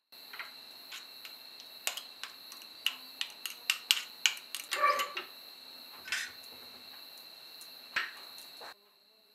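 A metal spoon clicking and scraping against a small bowl and a steel plate as mayonnaise is scooped out and dropped onto a roll: a dozen or so sharp clicks, thickest a few seconds in. A steady high-pitched whine runs underneath.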